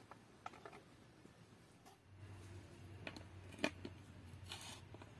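Faint, scattered clicks and light knocks from a metal baking tray being handled on the ground, with one sharper click a little past halfway and a short scrape near the end.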